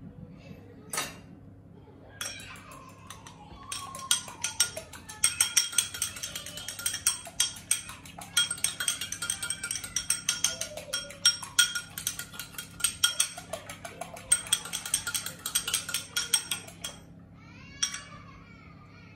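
A metal fork whisking egg in a small glass bowl: rapid, continuous clinking of the tines against the glass, starting about two seconds in and stopping shortly before the end. A single clink comes about a second in.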